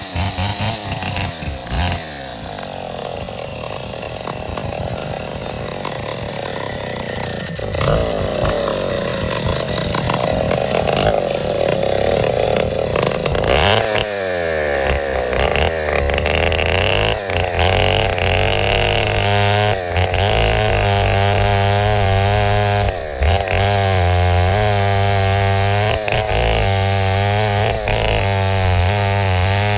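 Chainsaw running and cutting wood, its engine pitch repeatedly dipping and climbing again as it works.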